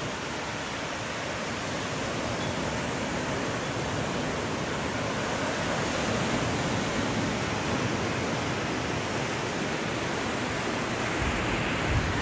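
Small waves breaking on a sandy beach, a steady rush of surf, with a few low rumbles near the end.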